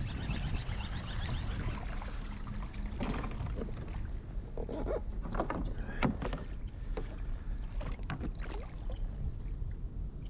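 Kayak on the water: a string of irregular knocks and bumps against the hull, with water movement, starting about three seconds in, over a steady low rumble.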